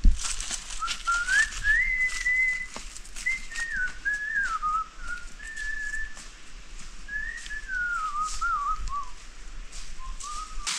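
A person whistling a wandering tune, holding some notes and sliding between others, with a thump at the very start and faint clicks and rustles underneath.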